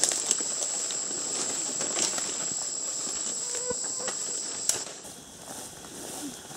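A steady, high-pitched insect drone, like crickets, over rustling and snapping of footsteps through forest undergrowth. Both cut off suddenly about two-thirds of the way through, leaving a quieter outdoor background.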